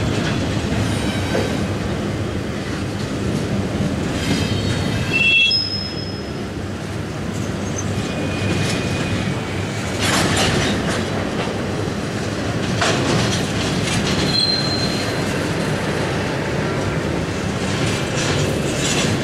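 Intermodal freight train's double-stack well cars rolling past: a steady rumble of steel wheels on rail. A few brief high wheel squeals come around five seconds in and again near the middle, and there are a couple of louder clanks about ten and thirteen seconds in.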